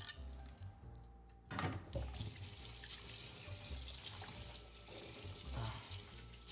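Kitchen faucet running into a sink: a steady rush of water that starts about a second and a half in and stops near the end.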